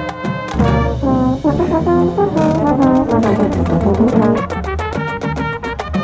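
Marching band brass section playing a loud passage with sliding, shifting chords, with drums and cymbals joining in quick accented hits about four seconds in.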